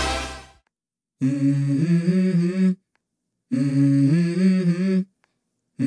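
Electronic intro music fades out in the first half second, then a hummed vocal phrase of a few held, stepping notes is sung twice, with short silences between: the opening of a song.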